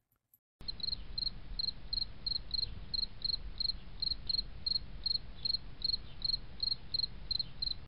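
A steady series of short, high-pitched chirps, about three a second, over a faint low rumble, starting just under a second in.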